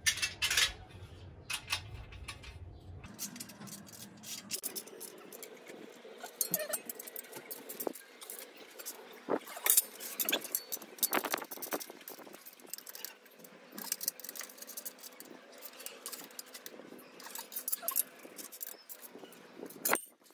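Irregular metallic clicks and clinks of a hand wrench turning nuts and bolts on a steel air-conditioner wall bracket as it is tightened up.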